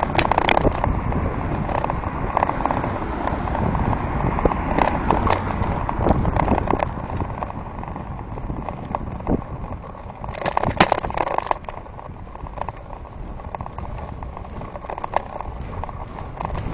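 Bicycle being ridden on a paved path, heard from a handlebar-mounted camera: a steady low rumble of wind on the microphone and tyre noise, with frequent sharp clicks and rattles from the bike, bunched up about ten seconds in. The rumble eases somewhat in the second half.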